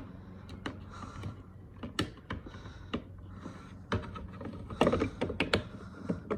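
Scattered sharp clicks and light rattles from hands handling a car side mirror's plastic wiring connector and trim parts while plugging the connector back in, with a quick run of several clicks about five seconds in.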